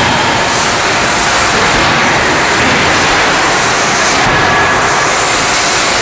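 Loud, steady industrial roar and hiss of forging-hammer machinery, with no separate hammer blows standing out. The hiss swells briefly about four seconds in.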